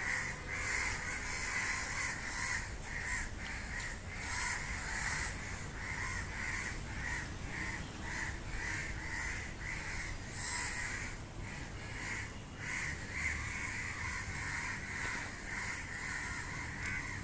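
Many crows cawing, their short harsh calls repeating and overlapping throughout.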